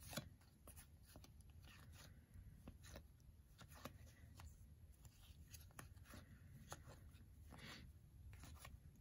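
Faint, irregular soft ticks and rustles of 2022 Topps Series 1 baseball cards being flipped one at a time through a hand-held stack, card sliding over card.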